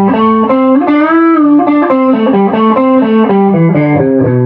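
Epiphone Les Paul electric guitar with both pickups on, through an amp at the edge of breakup, playing a single-note melody with a string bend about a second in, then striking a chord that rings on at the very end.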